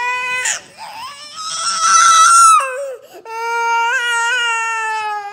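Toddler crying in long, held wails, the loudest a shrill scream about two seconds in.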